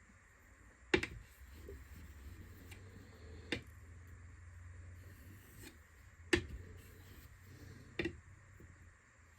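Light, faint strokes of a steel chisel's back on a wet 6,000 grit waterstone, taking off the burr. There are four sharp clicks, spaced about two to three seconds apart.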